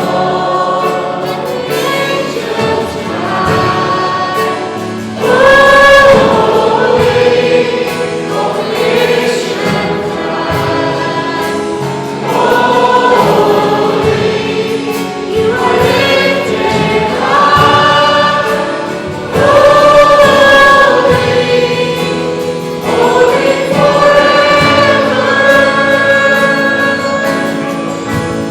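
A group of voices singing a gospel worship song together, in long held phrases.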